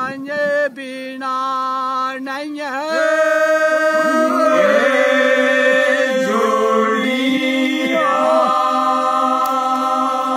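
Dogri bhakh (pa'akh) folk singing: unaccompanied male voices in long held notes. A lead voice wavers and bends over the opening seconds, then about three seconds in more voices join and the sound swells into a full, sustained chorus.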